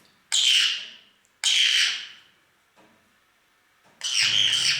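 Juvenile Jardine's parrot giving three harsh, rasping begging squawks, each under a second long. This is the begging call of a recently weaned young bird that still wants to be fed.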